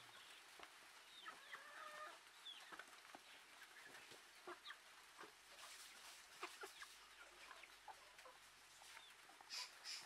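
A flock of domestic chickens clucking softly, with scattered short clucks and calls and a louder burst near the end.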